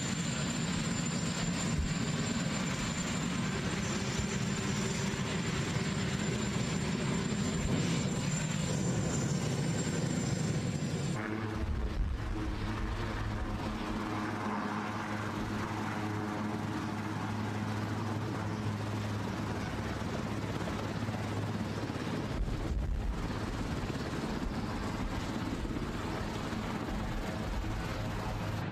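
Marine One, a Sikorsky VH-3D Sea King helicopter, running on the lawn with its turbines and rotors turning: a steady engine and rotor noise with a high whine. The sound changes abruptly about eleven seconds in, at a cut, and then carries on steadily with a low hum.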